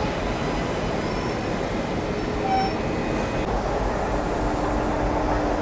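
Electric locomotive moving slowly along a station platform: a steady mechanical rumble, with a low steady hum joining in about four seconds in.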